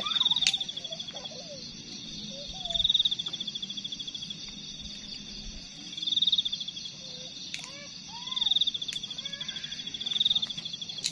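Night insect calling in loud, rapidly pulsed high trills that swell and fade five times, about every two seconds, over a steady chorus of other insects. A few sharp clicks come through.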